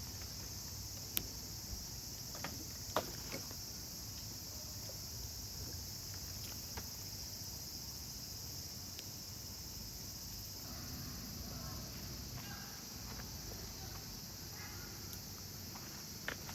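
Steady high-pitched chorus of insects, with a few sharp clicks, the loudest about a second and about three seconds in.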